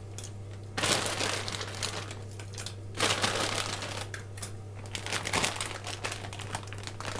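Crinkling of a cellophane pasta bag being handled, in irregular bursts, over a low steady hum.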